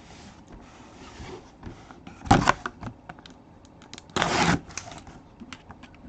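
Hands opening a boxed autograph mini helmet: scattered light clicks and rustles of cardboard and packaging, a sharp knock about two seconds in, and a short scraping rustle about four seconds in.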